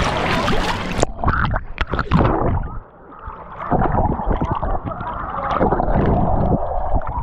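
Water splashing, then about a second in the sound turns suddenly muffled as the waterproof camera goes under the water: irregular gurgling and thumping heard from underwater.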